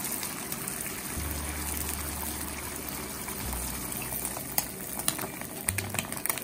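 Beaten eggs sizzling in butter in a small nonstick frying pan over a portable gas burner, as a steady hiss. Light ticks and scrapes of wooden chopsticks against the pan are heard in the second half.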